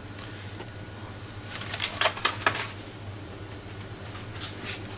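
Light handling noises as fruit is set on the pizza: a few soft clicks and rustles about two seconds in, fainter ones near the end, over a steady low hum.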